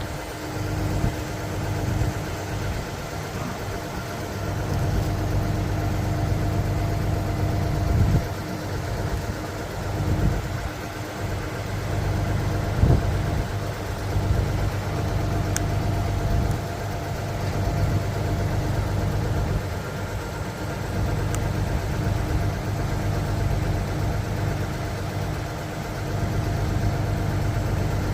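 Diesel engine of a 2014 Junjin 45 m concrete pump truck running steadily with a constant low hum, and a couple of brief knocks partway through.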